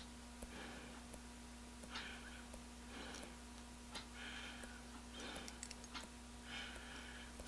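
Faint, light clicks of small steel chuck jaws and springs being fitted into an eggbeater hand drill's chuck, with soft breaths in between.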